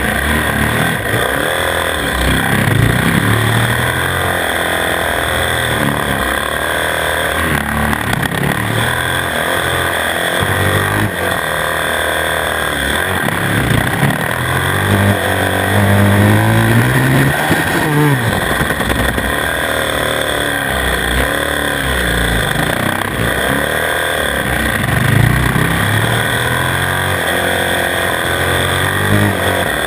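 Onboard sound of a 450 cc single-cylinder four-stroke supermoto engine being ridden hard, its pitch repeatedly rising under acceleration and dropping off again every few seconds.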